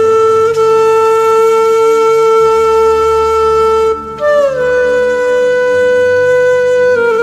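Background music led by a wind instrument playing long held notes over a low drone: one note holds to just before 4 s, then a higher note comes in, slides down and holds, and near the end it slides down again.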